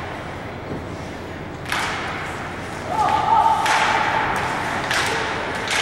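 Ice hockey arena sounds: crowd noise, a sharp thud about a second and a half in, then a brief steady tone about three seconds in as the crowd gets louder, with a few more knocks near the end.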